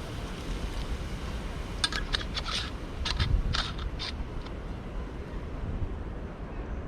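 Wind buffeting the microphone as a steady low rumble, with a short run of small sharp clicks and scrapes from about two to four seconds in.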